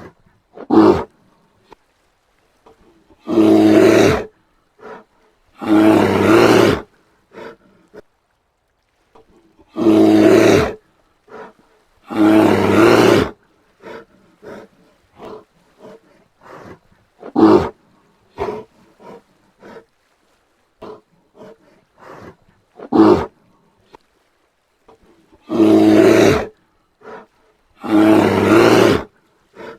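Brown bear roaring: three pairs of loud roars, each about a second long, with a few shorter sharp calls and quiet short sounds in between.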